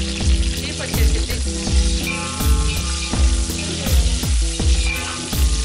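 Sliced onions and green chillies sizzling in hot oil in a large aluminium pot as a metal slotted spoon stirs them. Background music with a steady low beat, about two a second, plays over the frying.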